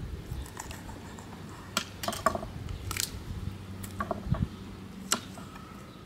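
Kitchen knife cutting into raw sturgeon on a wooden chopping board: a scattering of short scrapes and clicks, the sharpest about two, three and five seconds in.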